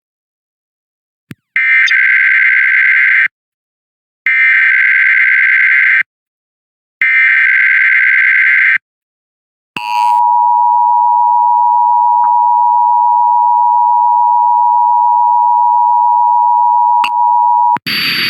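Emergency Alert System test signal: three identical bursts of SAME digital header data, each under two seconds with short gaps between, then the steady two-tone EAS attention signal held for about eight seconds before it cuts off near the end.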